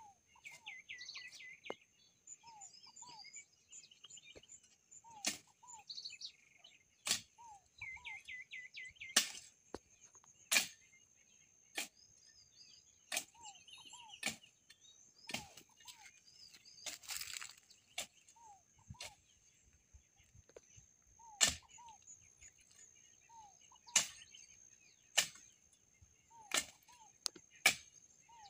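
Irregular sharp chops of a hoe striking into weeds and soil, about one every one to two seconds. Birds chirp and call throughout over a steady high whine.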